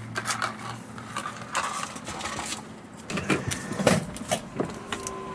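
Handling noises: a run of light clicks, knocks and rustles as a payment card is put into a card reader at a drive-through window. A faint steady tone begins near the end.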